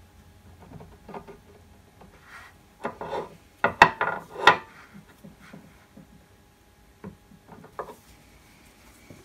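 Height gauge's steel scriber scratching marking lines onto a steel nut coated in marking blue, held in a collet block. Sharp metal clicks and knocks come as the block is turned and set down on the bench, loudest about four seconds in.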